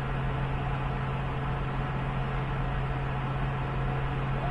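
Diesel engines of tracked hydraulic excavators running at a steady speed: an even, low hum with no revving or change in pitch.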